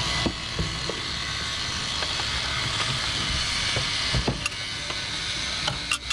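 Steering column of a squarebody Chevrolet Suburban being worked loose and pulled out of the dash: scattered knocks and rattles over a steady hiss.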